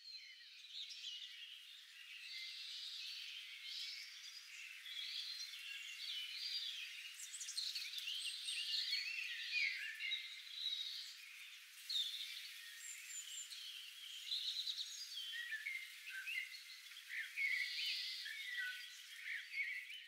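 Faint nature ambience: a dense chorus of high chirps, trills and croaks from small animals, thin with no low end, cutting off abruptly at the end.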